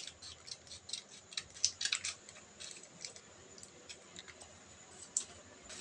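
A plastic sachet crinkling and crackling as it is handled and torn open by hand, in quick irregular clicks. The crackling is densest about two seconds in, with one sharper click near the end.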